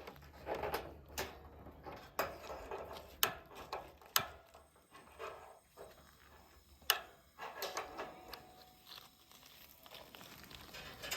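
A run of sharp clicks, about one a second and fewer in the second half, with quieter handling knocks between, as a Coleman Triton propane camp stove is being lit.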